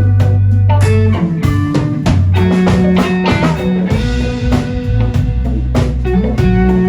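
Live blues-rock band playing: electric guitar picking out notes over a bass line and a drum kit.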